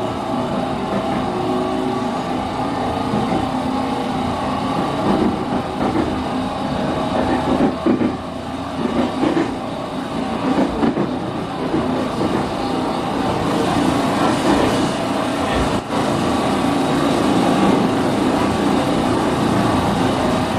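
Running noise of a JR 209-500 series electric train car (MoHa 208-528, IGBT-VVVF refurbished) over its bogie: several steady tones over rail and wheel noise, with a few irregular knocks in the first half. It carries the car's known abnormal noise, which the uploader takes for a mechanical bearing fault rather than an electrical one, since the motor-current check was normal.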